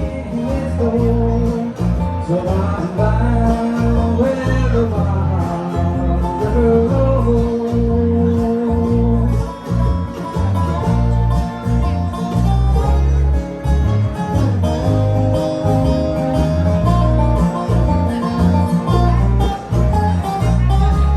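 Bluegrass band playing live: picked guitar and banjo over a steady bass line, with long held melody notes.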